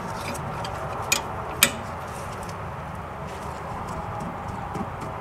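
A hand wrench clinking on the rusted wheel cylinder bolts of a rear drum brake backing plate as they are loosened: two sharp metallic clicks about a second in, half a second apart, then a few faint ticks near the end, over a steady low background noise.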